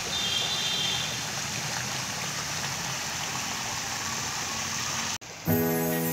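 Fountain jets splashing into a pool: a steady rush of water. About five seconds in it cuts off and music with held, piano-like notes begins.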